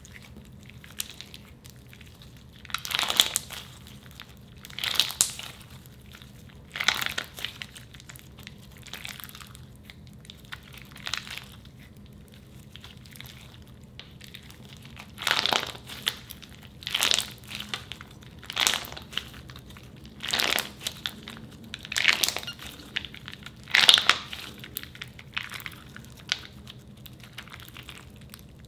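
Ultra clear slime packed with plastic charms being squeezed and stretched by hand, giving a short crunchy squish about every two seconds, about a dozen in all, over a faint steady hum.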